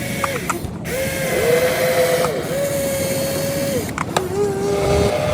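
Small electric motors of a radio-controlled excavator whining in a run of short bursts, each about a second long. Each burst rises quickly to a steady pitch and drops away when it stops, over a constant gritty mechanical rattle.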